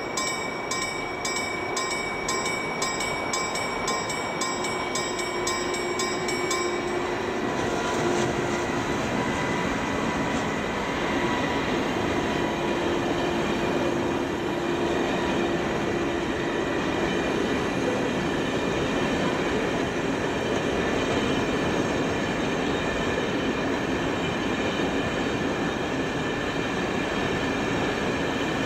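A cellulose freight train's wagons rolling past on steady wheel and rail noise. A level-crossing warning bell rings in rapid, even strokes over it and cuts off about seven seconds in.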